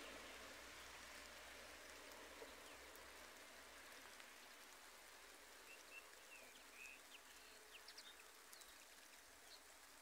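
Light steady rain falling on garden foliage, a faint even hiss with scattered drop ticks, slowly growing fainter. A few faint short bird chirps come in the second half.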